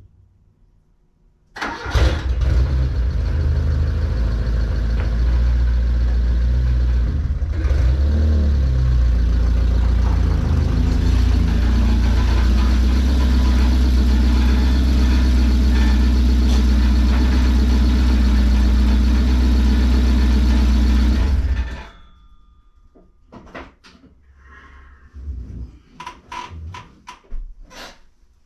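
A Fiat 124 Spider 2000's twin-cam four-cylinder engine cranks and catches about a second and a half in, blips briefly, then runs loud and steady with its exhaust pipe broken apart, before being switched off near the end. A few knocks and clicks follow.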